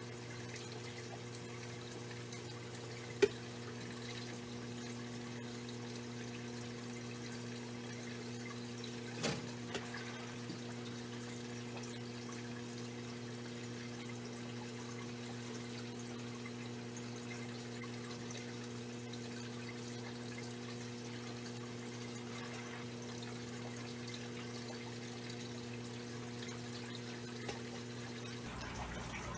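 Faint dripping and trickling of water as wet aquarium plants are lifted out of the tank and dropped into a bucket, over a steady low hum. A sharp click sounds about three seconds in and another about nine seconds in.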